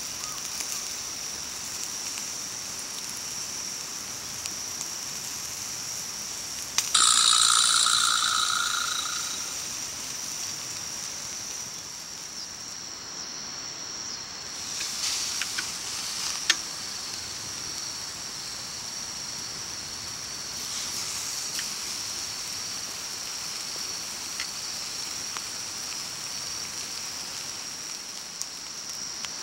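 Steady high-pitched chorus of insects. About seven seconds in, a louder call starts suddenly over it and fades out within a couple of seconds, and a few light clicks follow a little later.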